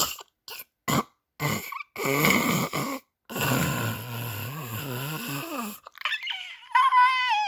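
Snoring: a few short snorts, then long drawn-out snores with a low wavering pitch. About six seconds in they give way to a high, wavering whistle-like note.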